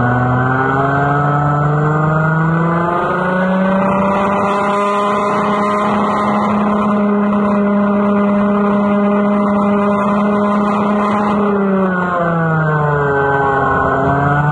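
Kart engine heard on board at racing speed: its pitch climbs over the first few seconds, holds high and steady, falls about twelve seconds in as the kart slows, then starts climbing again near the end.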